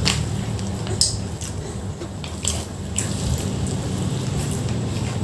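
Wet, clicky mouth sounds of someone chewing and smacking a mouthful of nasi padang, with a few sharp smacks spread through, over a steady low hum.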